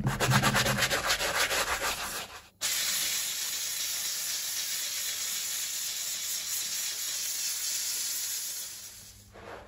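A stiff brush scrubs a white shoe sole in quick rhythmic strokes. After a short break, a handheld steam cleaner hisses steadily as its nozzle is run over the sole, fading out near the end.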